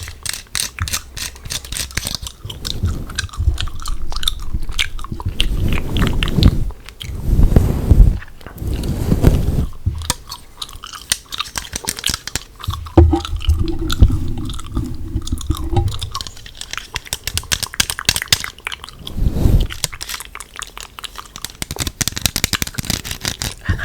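Gum chewing close to the microphone: a dense, continuous run of small clicks, with a few dull low thumps mixed in.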